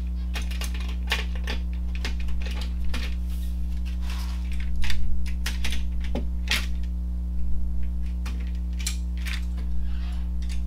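Clecos being snapped into drilled holes along an aluminium spar with cleco pliers: a run of irregular light metallic clicks, busiest about halfway through, over a steady low hum.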